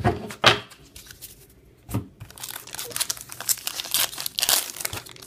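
Plastic-foil trading card pack wrapper crinkling and being torn open, with a few sharp crackles near the start and dense crinkling from about halfway through.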